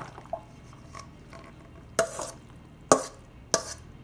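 Metal spoon scooping and scraping moist pasta salad out of a metal mixing bowl. It knocks against the bowl three times in the second half, each a sharp clank with a short ring.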